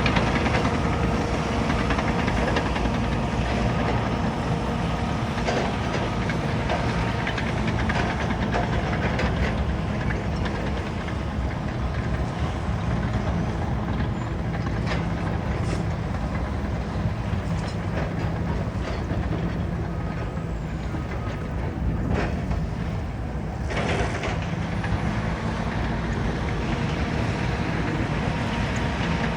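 Caterpillar bulldozer's diesel engine running steadily at work, with a few short knocks scattered through.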